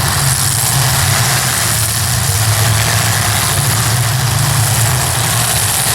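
Demolition derby cars' engines running in the arena, a steady low drone under a wash of noise.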